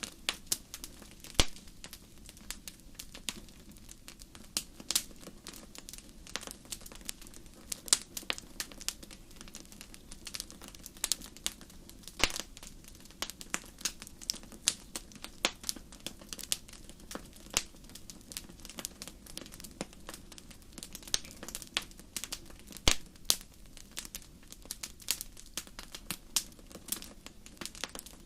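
Wood fire in a fireplace crackling: dense, irregular snaps and pops, some much louder than others, over a steady low rumble of the flames.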